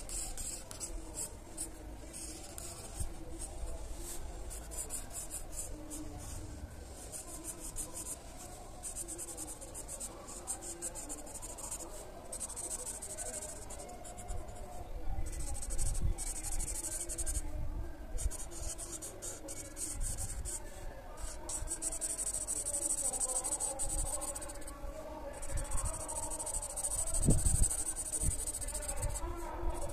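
Marker tip stroking back and forth across paper while colouring in: runs of quick, scratchy strokes with short pauses between them. There is a soft low knock near the end.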